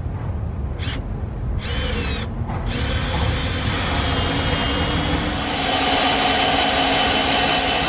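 Cordless drill with a 1-inch bit boring a hole through a wooden cabinet wall: two short trigger pulls, each winding down with a falling whine, then steady drilling with a high whine from about a third of the way in, its pitch shifting slightly past the middle.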